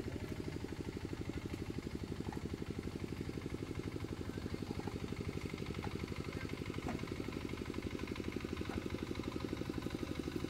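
Single-cylinder horizontal diesel engine of a two-wheel walking tractor idling with a steady, rapid, even chug.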